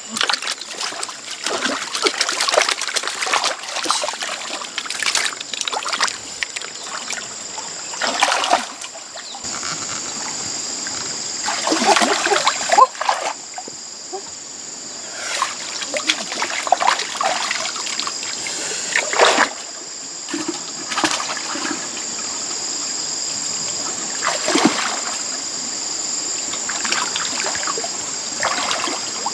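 Hands splashing and sloshing through shallow muddy water while groping for fish, in irregular bursts of splashes and trickles, over a steady high-pitched drone.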